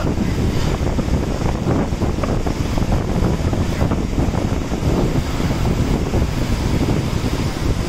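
Wind buffeting the microphone in a steady rumble, with the wash of sea surf beneath it.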